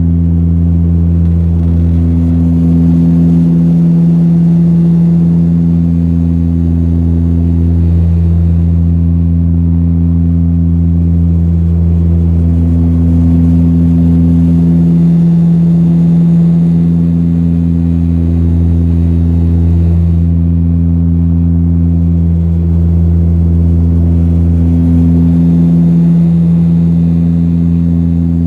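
Saab 340 turboprop engines and propellers droning steadily with a deep hum, swelling and fading in a slow beat every few seconds.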